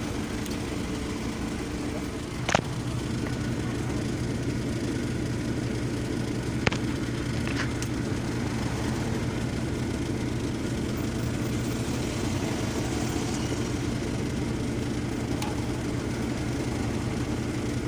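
Isuzu 4HK1 four-cylinder diesel engine running steadily with a low hum, now that a loose battery terminal has been secured. A sharp click comes about two and a half seconds in, after which the hum grows a little stronger, and a second click follows a few seconds later.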